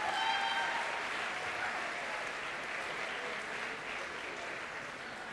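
A large audience applauding, a steady clapping that slowly fades.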